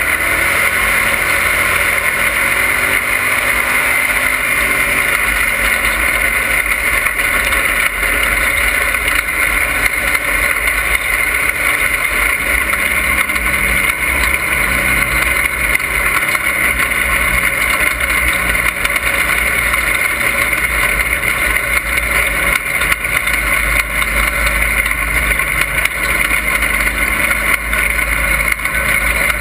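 Dirt-track race car engine running hard at racing speed, heard loud from inside the cockpit, its pitch rising and falling through the laps, mixed with rushing wind and track noise.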